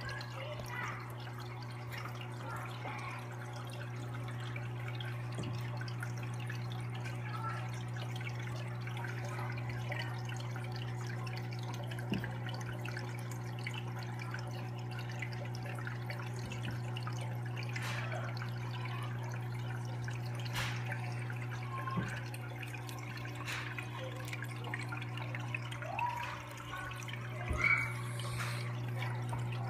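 Aquarium filter running: a steady low hum with water trickling and dripping into the tank. A few faint knocks come through, one about twelve seconds in, another at twenty-two and a last one near the end.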